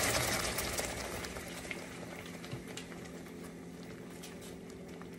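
Thick peanut-butter fudge mixture bubbling and sizzling in an aluminium pot on the stove, stirred with a silicone spatula. A loud hiss at the start fades over the first second or two into a steady patter of small pops.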